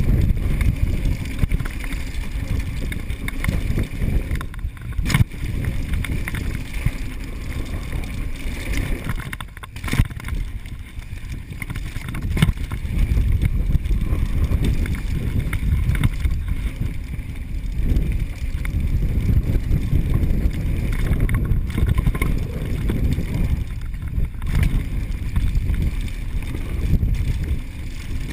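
Mountain bike riding fast down a dirt trail: a steady low rumble of wind on the camera microphone and tyres on dirt, with a few sharp knocks over bumps.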